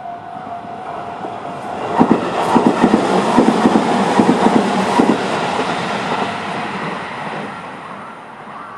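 Tobu 20400-series electric train passing over a level crossing, its wheels clacking rhythmically over the rail joints, loudest from about two to five seconds in, then fading as it moves away. An electronic crossing alarm tone stops about a second in.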